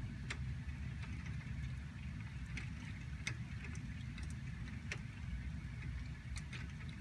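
Heavy rain seen through a window, with drops striking the window glass as irregular sharp ticks over a steady rain hiss and a low rumble.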